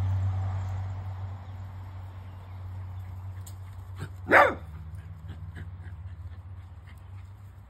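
A small dog barks once, sharply, about four seconds in, over a steady low hum.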